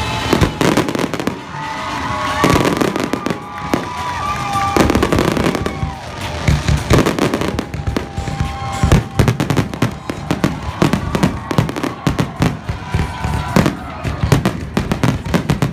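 Fireworks display: a rapid run of shell bursts and crackling, coming thicker and faster in the second half.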